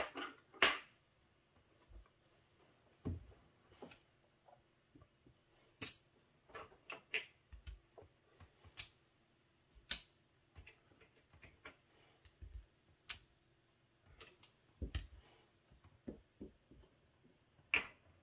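Casino chips clicking as they are picked from stacks and set down on a craps table's felt layout: a scattered, irregular string of short, sharp clicks with quiet gaps between them.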